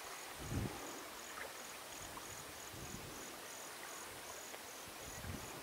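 Insects, crickets by their tags, chirping faintly in a high, even pulse of about two to three chirps a second over quiet outdoor ambience, with a soft low bump about half a second in.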